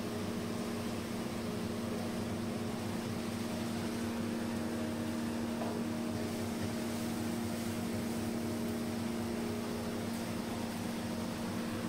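Steady mechanical hum of kitchen equipment running: a constant low drone over an even rushing hiss.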